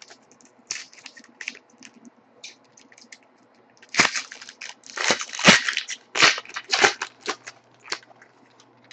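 Light clicks and flicks of trading cards being handled, then, about four seconds in, a few seconds of loud crinkling and tearing as a foil trading-card pack wrapper is ripped open.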